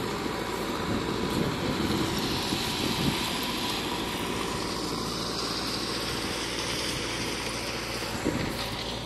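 JCB backhoe loader's diesel engine running steadily as the machine works the track ballast.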